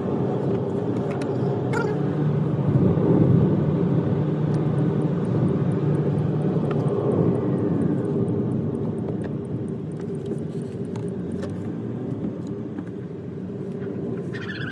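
Maruti Suzuki Dzire's 1.2-litre four-cylinder petrol engine running with road noise, heard from inside the cabin while driving. The engine note is strongest a few seconds in and eases off in the second half.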